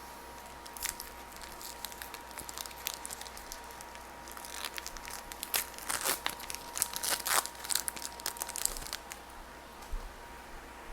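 Foil wrapper of a Pokémon trading card booster pack being torn open and crinkled in the hands, as a run of sharp crackles that comes thickest in the middle.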